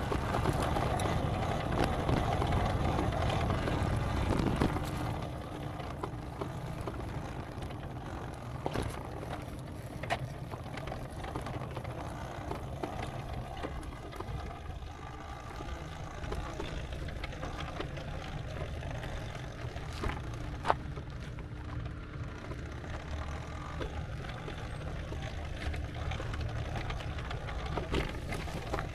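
Steady low rumble of a vehicle, which drops to a quieter level about five seconds in, with a few faint clicks.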